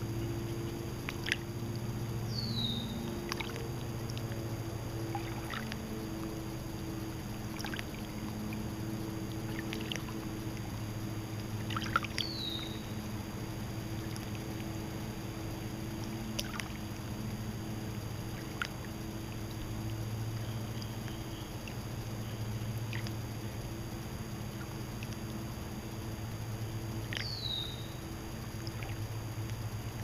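Small waves lapping at a lake shore with soft irregular splashes, over a steady low hum. A short high falling call, likely a bird, sounds three times.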